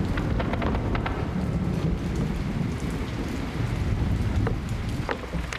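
Rain falling with a steady low rumble like thunder underneath, and scattered sharp ticks of drops.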